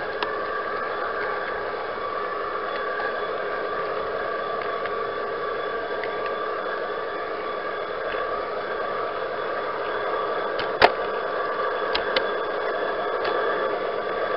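G gauge model train running on garden track, its motor and gears giving a steady whir with a few sharp clicks, the loudest about eleven seconds in.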